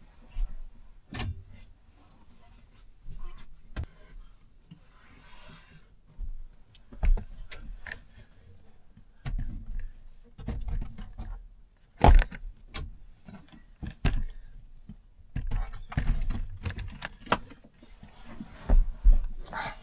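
Irregular metallic clinks and knocks of hand tools and metal parts being handled, the loudest knock about twelve seconds in, as the engine bay is put back together after a repair.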